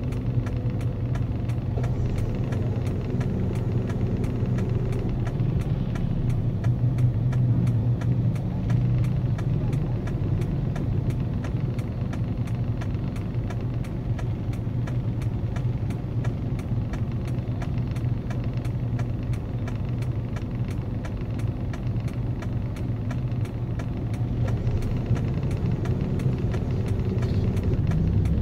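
Police patrol motorcycle engines idling steadily.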